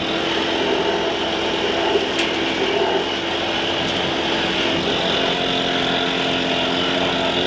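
Blower motor running steadily, blasting lint and dust out of the dryer cabinet.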